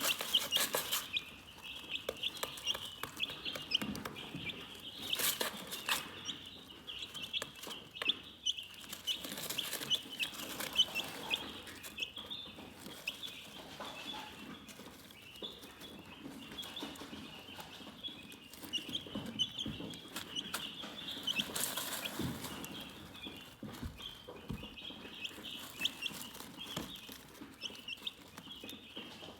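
A flock of chickens chirping continuously, many short high peeps overlapping, with a few louder calls standing out now and then.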